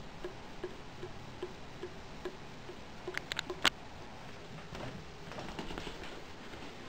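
Water dripping from a bathroom tap into the sink, a soft regular drip about two or three times a second. A little past halfway comes a short cluster of sharp clicks, the loudest sounds here, and the drips give way to faint irregular rustling.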